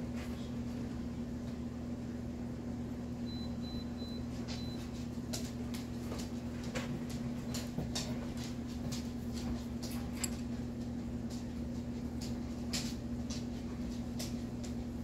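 Light, scattered taps and clicks from handling a vinyl reborn doll limb, paintbrushes and a makeup sponge while paint is dabbed on, over a steady low electrical hum. The taps grow more frequent about five seconds in.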